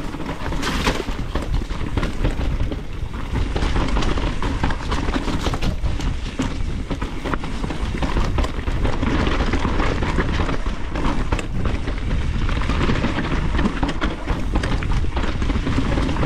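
Mountain bike riding down a rooty singletrack, heard through a GoPro Hero10's microphone: a steady rumble of wind buffeting and tyres on dirt, with frequent knocks and rattles as the bike hits roots.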